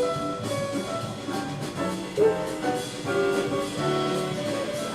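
Instrumental background music: held melodic notes over light percussion, with one short louder note about two seconds in.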